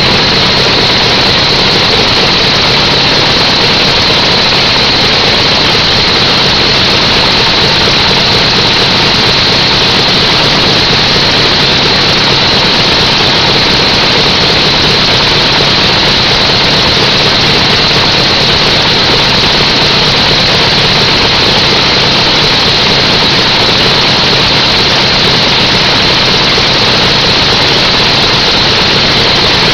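An engine running steadily and loudly, its pitch never rising or falling.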